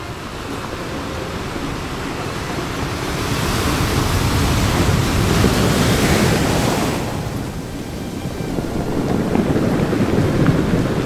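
Small sea waves sloshing around a microphone held at water level, with wind buffeting it. A louder rush of hiss swells about three seconds in and fades by about seven seconds.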